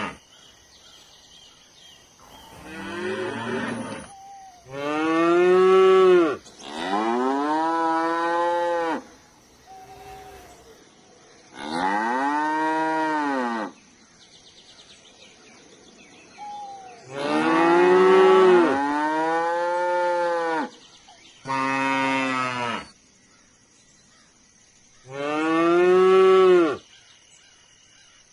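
Cattle mooing: about seven long, loud moos, one after another with short pauses between, each rising and then falling in pitch.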